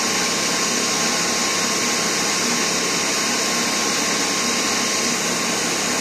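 Steady loud rush of air with a thin steady whine above it: compressed-air spray or ventilation equipment running while clear coat is applied to a car.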